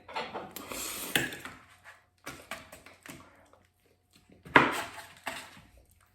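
Fast eating of a soft chocolate pie: a spoon scraping and knocking against the pie dish, mixed with chewing and mouth noises, in a string of short bursts with one sharp knock about four and a half seconds in.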